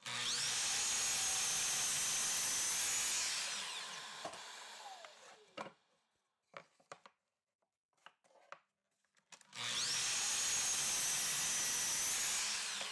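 Miter saw starting abruptly and running steadily while the blade crosscuts a short wooden block against a stop block, then winding down over about two seconds. A few light knocks follow as the cut piece is handled, and the saw starts again near the end for a second cut.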